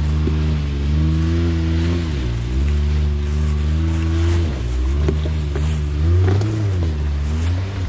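Side-by-side UTV engine revving up and down under repeated throttle while crawling over rocks, its pitch rising and dropping about every two seconds, with a few light knocks in the second half.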